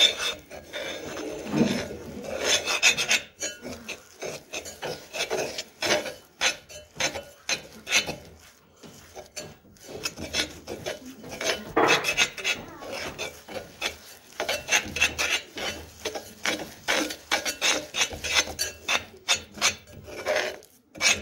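Metal fork scraping and stirring grainy sugar and honey against the bottom of a pot, a rasping in quick, uneven strokes with a few short lulls. The sugar is only just starting to melt, so it is still gritty under the fork.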